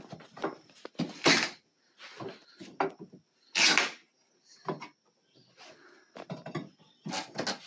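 Pry bar and hammer working an old exterior door frame loose from the wall: a string of irregular knocks and creaks of wood and nails, with two louder ones about a second in and near the four-second mark.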